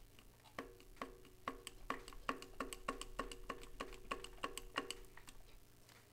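Spark plug heat tube on a Dodge 5.2 Magnum V8 clicking in the cylinder head as it is rocked back and forth with locking pliers: a run of faint clicks, about three a second, each with a short metallic ring. The pressed-in tube is stuck with built-up deposits and is working loose.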